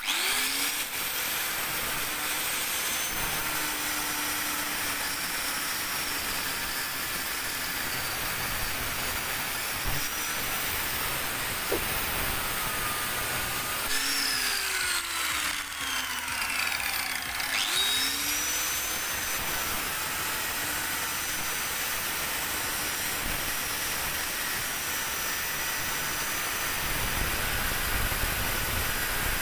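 Angle grinder with a cutting disc running steadily while it cuts into the steel core of a microwave oven transformer, its whine now and then sweeping down and back up in pitch.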